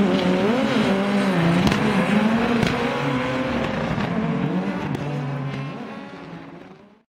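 Rally car engine revving up and down as the throttle comes on and off, with a few sharp pops. It fades out near the end and then cuts off.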